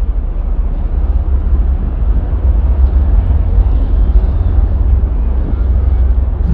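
A loud, steady deep rumble with a noisy wash above it, without clear pitch or rhythm.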